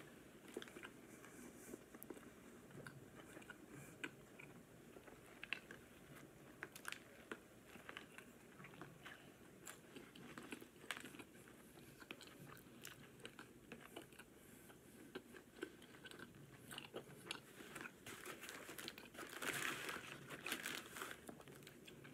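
A person biting into and chewing a burger up close, faint: soft wet mouth clicks and smacks at an uneven pace, a little louder near the end.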